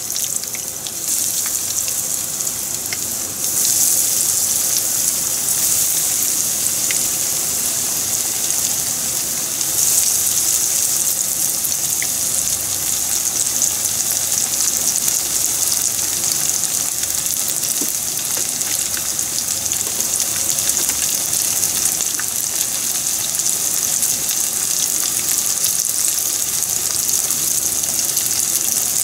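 Hot oil sizzling as panko-breaded pieces are deep-fried in a frying pan. The hiss steps up louder about three seconds in and again around ten seconds in as more pieces go into the oil, then holds steady.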